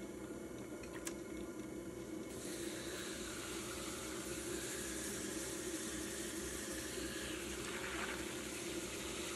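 Electric pottery wheel running steadily with a low hum while wet hands press and slide over the spinning lump of clay, a continuous wet, watery swishing of slurry as the clay is centered.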